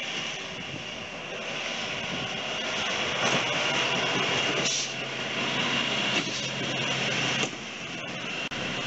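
Heavy hi-rail spray truck rolling along the rails on its rail gear, diesel engine running, loudest as it passes close by in the middle and dropping off near the end.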